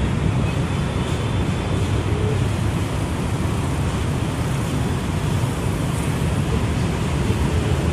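Steady low rumble of city traffic noise, with no distinct events standing out.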